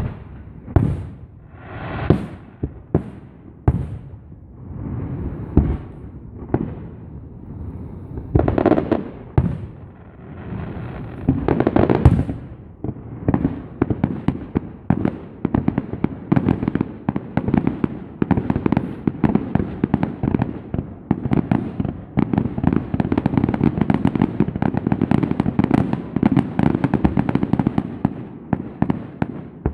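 Aerial fireworks going off: separate bangs and booms, a second or so apart, then from about thirteen seconds in a dense barrage of rapid bangs and crackle that runs on without a break.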